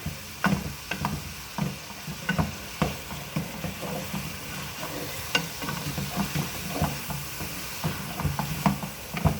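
Ground meat frying in a pan while a utensil stirs and breaks it up, scraping and tapping the pan at an irregular pace of about two strokes a second over a sizzle.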